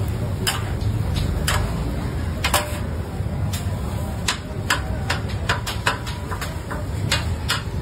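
Sharp metallic clicks and taps at irregular intervals, a little over one a second, over a steady low rumble: utensils knocking on a flat-top steel griddle.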